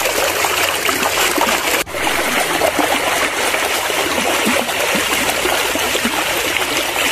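Spring water running and burbling, a steady dense splashing with constant small bubbling sounds, briefly broken about two seconds in.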